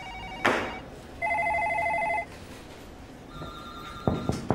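Telephone ringing: a trilling electronic ring about a second long, starting about a second in. Near the end there is a briefer, higher electronic tone. Sharp knocks come just after the start and again near the end.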